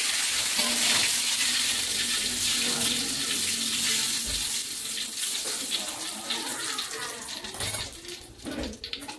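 Eggplant pieces sizzling in hot oil in an aluminium wok as they are lifted out in a wire strainer. The sizzle fades steadily over the second half as the food leaves the oil.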